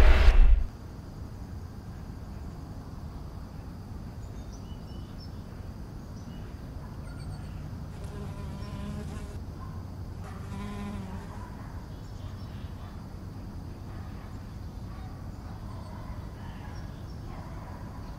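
A thunder rumble cuts off abruptly within the first second. Then a faint steady low hum follows, with a buzzing insect passing twice, around 8 and 10.5 seconds in.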